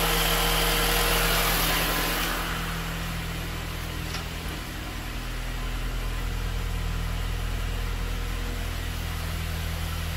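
Mini Cooper S R53's newly installed supercharged 1.6-litre four-cylinder engine idling steadily. It is louder and brighter for the first two seconds or so, then softer and even.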